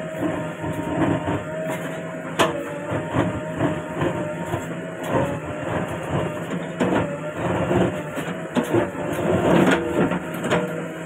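Diesel engine of a JCB 3DX backhoe loader running while it digs, with repeated knocks and clanks from the bucket and arm and one sharp clank about two and a half seconds in.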